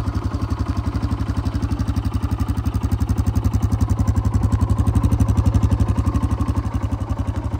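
Honda CRF230F's air-cooled four-stroke single-cylinder engine idling steadily just after a cold start, an even chug of about ten exhaust pulses a second, a little louder in the middle.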